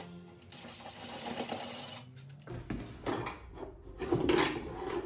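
Cordless drill running in short spurts as screws are backed out.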